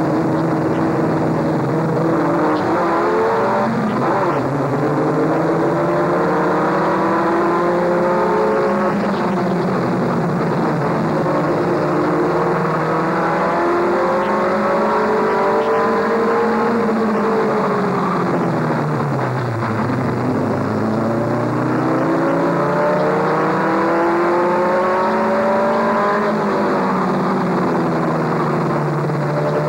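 A short-track race pickup truck's engine, heard from inside the cab. The revs climb over several seconds and hold, drop away about two-thirds of the way through, then climb again.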